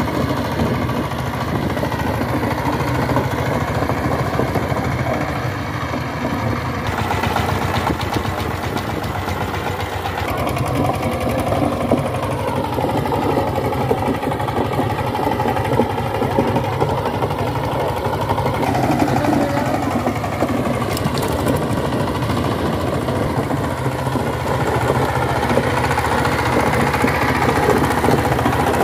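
Diesel engine of a two-wheel power tiller running steadily with a fast, even knock, under load as its rotary blades till dry soil.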